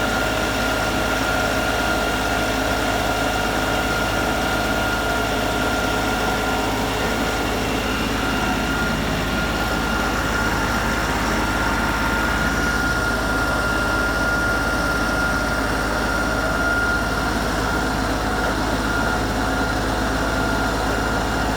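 LS XR 3135 compact tractor's diesel engine running steadily, with a steady high whine above it.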